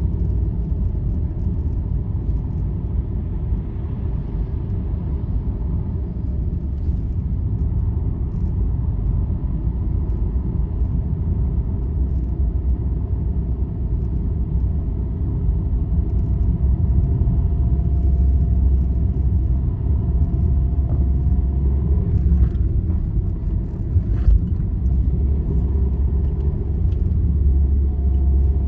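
Steady low road rumble of a vehicle travelling along a highway, heard from inside, with a faint steady whine above it. A few faint clicks come near the end.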